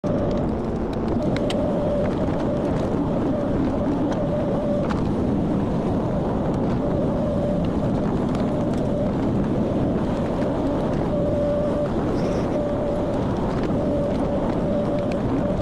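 Excavator diesel engine running steadily, with a high whine that comes and goes over it.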